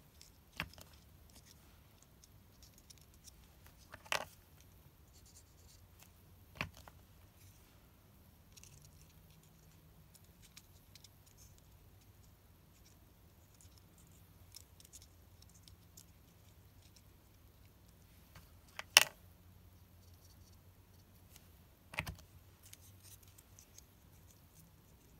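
Hands handling and pressing small cardstock paper loops while gluing them, with faint paper rustles and five sharp taps or clicks spread through, the loudest about three-quarters of the way in, over a faint low hum.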